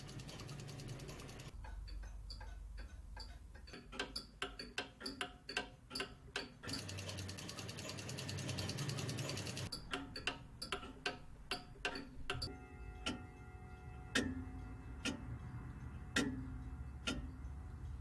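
Mechanical clocks ticking, the tick rate changing as one clock gives way to another. About seven seconds in, a steady whirring hum covers the ticks for a few seconds. Near the end, slower ticks about once a second sound over a held tone.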